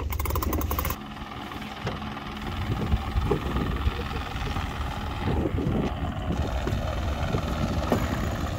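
Helicopter rotor chopping overhead, mixed with wind noise on the microphone aboard a sailboat under way. The rapid chop is clearest in the first second.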